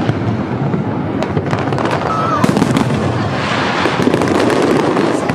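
Fireworks display going off in quick succession: a dense, continuous run of bangs and crackles. There is a short whistle about two seconds in.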